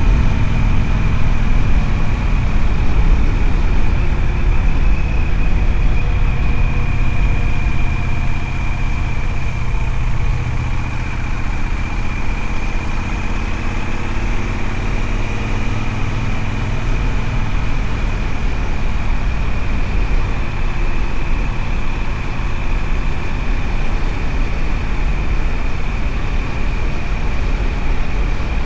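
Triumph Speedmaster's parallel-twin engine running steadily under way, heard from on the bike, easing off slightly about eight seconds in.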